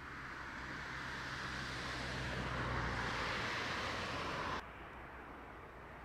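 Fire engine driving through a road tunnel without a siren, its engine and tyre noise growing steadily louder as it approaches, then cutting off suddenly about four and a half seconds in, leaving a quieter steady hum of traffic.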